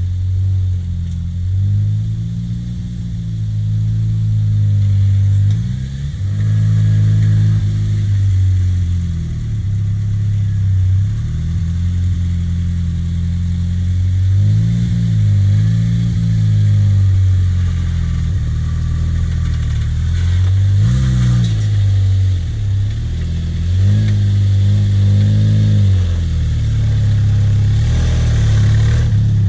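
Lifted Jeep Wrangler's rebuilt engine running at low speed while the Jeep crawls up a grassy bank, revving up and falling back several times.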